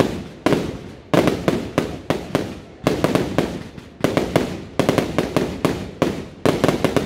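Aerial fireworks shells bursting in quick succession, a sharp bang every half second or so, some in tight clusters, each trailing off in a fading rumble.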